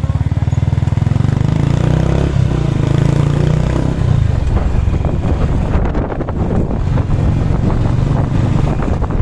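Small motorcycle engine running close by with an even exhaust pulse, getting under way. From about four seconds in, the engine sound turns rougher and is mixed with wind rushing over the microphone as it rides along.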